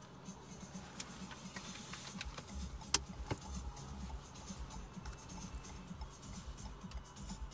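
Renault Mégane 4's 1.6 16-valve petrol engine running at low revs inside the cabin as the car just creeps off, a low steady hum with no rise in pitch. Over it come scattered clicks and rustles of the phone being handled, with one sharper knock about three seconds in.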